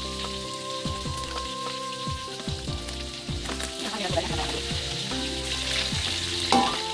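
Fish deep-frying in hot oil in a wok, a steady sizzle. In the second half a metal spatula turns the pieces, with a sharp knock of the spatula against the wok near the end.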